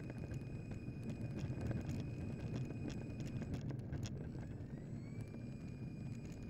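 Electric RC model aircraft rolling along a rough asphalt runway: a rumble with many small clicks from the wheels on the surface. Over it runs a thin, high electric-motor whine that drops out about halfway through and glides back up to pitch about a second later as the throttle is eased up again.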